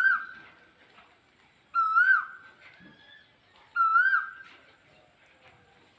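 A bird calling the same short, hooked call again and again, about once every two seconds: three calls, the first just at the start.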